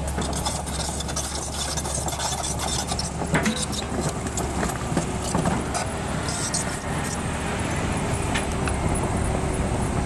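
Sany SY215C crawler excavator running and travelling on its steel tracks: a steady diesel engine drone with frequent clanks and clicks from the track links. The low engine tone changes about three and a half seconds in.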